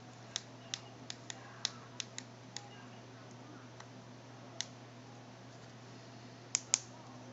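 Light, sharp clicks and taps of small screws, a screwdriver and plastic phone parts being handled on a work surface while a Samsung Exhibit 2 phone is unscrewed. The clicks come in a quick run of about eight, then a single one, then a close pair near the end, over a low, steady hum.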